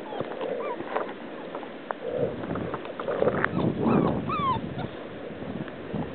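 Puppies giving a few short, falling whines and yips as they play, the loudest about four seconds in, with rough rustling noise from about two to four seconds in.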